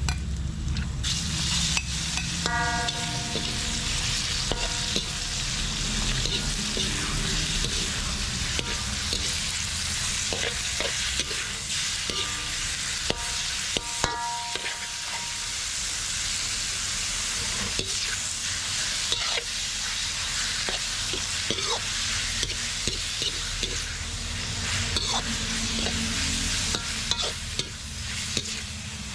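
Sliced beef and minced garlic sizzling in a hot wok. The sizzle steps up about a second in as the beef goes into the pan. A metal spatula stirs the meat, scraping and clicking against the wok.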